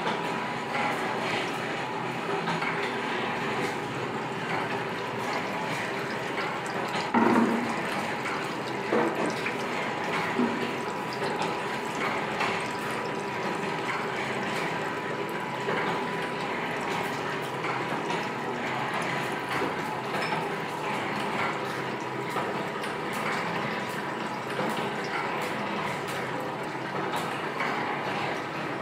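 A 4-bolt mini mustard oil expeller running: a steady mechanical noise from the motor-driven press with a constant whine. There is a louder knock about seven seconds in and a couple of lighter ones shortly after.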